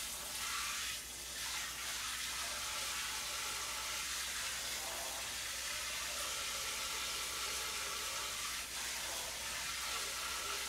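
Kitchen tap running steadily into a used cooking pan in the sink, filling it with water to soak.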